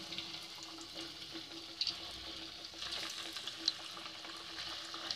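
Corn-flour and fenugreek puris deep-frying in hot oil in a kadhai: a steady sizzling hiss with scattered crackles, and a couple of sharper pops about two and three and a half seconds in.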